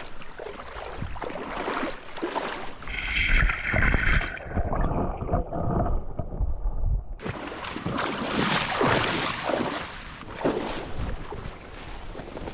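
Stream water rushing and splashing, with wind on the microphone. For a few seconds in the middle the sound turns duller and muffled, then the full rushing returns.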